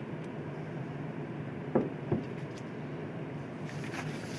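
Steady low hum of a quiet room through a podium microphone, with two short thumps about half a second apart a little under two seconds in.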